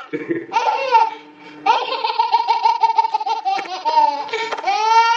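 Baby girl laughing hysterically in rapid, high-pitched pulses, with a short catch of breath about a second in, then a long unbroken run of laughter ending in a rising squeal.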